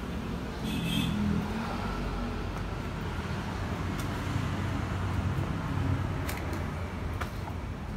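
Steady low rumble of motor-vehicle engine noise, with a few faint clicks.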